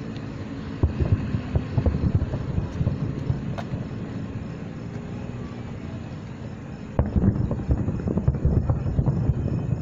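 Distant fireworks going off in rapid volleys of dull booms and cracks. One spell starts about a second in, and a second, louder spell starts suddenly near the seven-second mark.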